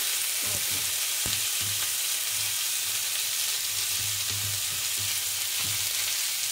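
Onions, almonds, apricots and boiled eggs sizzling in oil in a frying pan as they are stirred with a spatula. The steady sizzle runs throughout, with a few faint clicks of the spatula.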